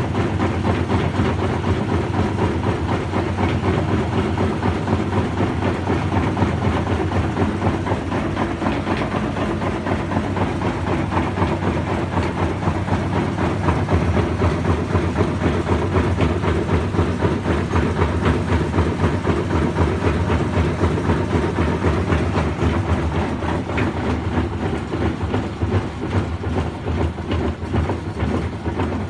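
Washing machine running with a steady low rumble and continuous fast rattling and knocking, a noise its owner is unsure is normal.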